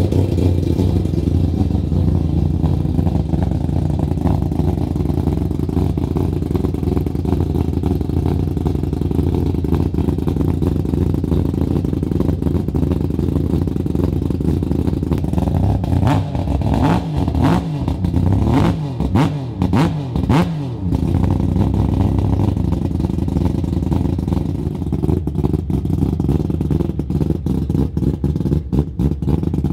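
Mazda 20B three-rotor rotary engine in a 1993 RX-7 idling steadily after a completely cold start. About halfway through it is blipped several times, its pitch rising and falling quickly, then it settles back to idle.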